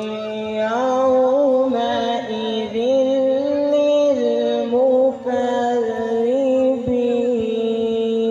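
Quran recitation: a single voice chanting a slow, melismatic line of long held notes with ornamented turns, broken by a short breath about five seconds in.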